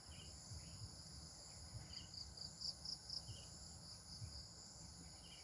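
Crickets chirping faintly: a steady high-pitched trill with short pulses repeating irregularly on top of it.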